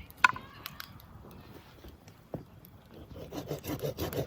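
A hand saw cutting firewood: quick, rhythmic rasping strokes start about three seconds in. Before that, a sharp clink with a brief ringing tone just after the start, and a single knock about two seconds in.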